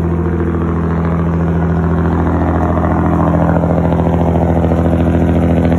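Mercedes-Benz truck's diesel engine idling steadily, growing slightly louder toward the end.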